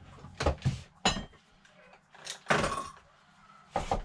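Knocks and a scraping rattle from the old wooden window casing and sash being worked by gloved hands. There are a few sharp knocks in the first second, a longer scrape around the middle and another knock near the end.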